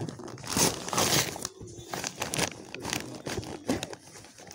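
Wrapping paper being torn and crumpled as a present is unwrapped, in irregular rustling rips.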